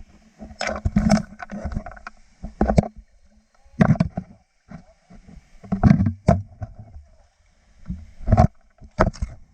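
River water splashing and knocking in irregular loud bursts, a few seconds apart, with quiet gaps between.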